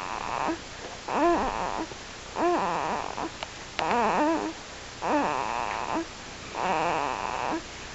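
Sleeping infant snoring: a raspy breath about every second and a half, each beginning with a short squeaky sound that rises and falls in pitch.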